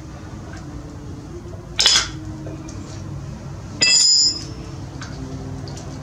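Metal hand tools clinking against metal, twice: a short clatter about two seconds in, then a ringing clink about four seconds in, as a 19 mm wrench is brought to a carburetor fuel cut solenoid.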